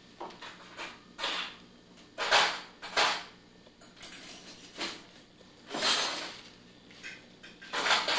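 Tissue paper and gift wrapping paper rustling and crinkling in short irregular bursts as a kitten bats at it and rolls in it.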